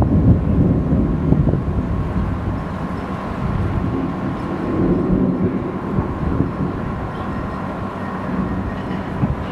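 Thunder rolling in the mountains: a long, low rumble that swells slightly about five seconds in.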